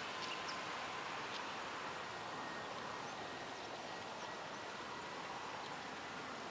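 Distant twin-engine jet airliner on final approach, heard far off as a steady rushing with a faint thin engine whine that comes in about two and a half seconds in. A few faint bird chirps.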